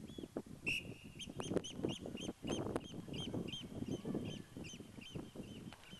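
A bird calling over and over: short, sharp, high calls several times a second, beginning about a second in with a longer call, over a lower background of field noise.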